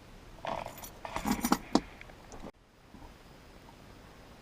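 Keys jangling and clicking on a key ring with the keyless-entry remote, in a burst of short rattles lasting about two seconds that cuts off suddenly.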